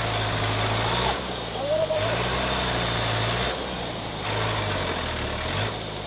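Bus engine labouring in low gear as the bus fords a rushing river, the revs surging and easing off about three times, over the steady rush of water against the wheels.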